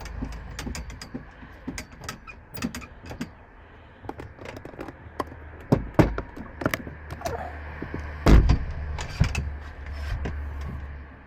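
Irregular clicks, taps and knocks of hardware being handled and fitted, with louder thumps about six and eight seconds in.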